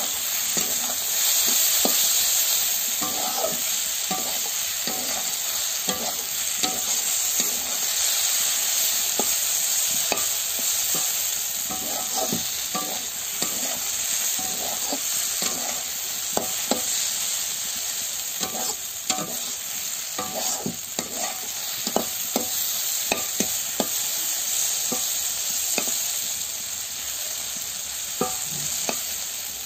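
Sliced bitter gourd, onion and green chilli sizzling in oil in a kadai, with a steady sizzle and frequent short scrapes and knocks as a spatula stirs them against the pan to keep them from sticking.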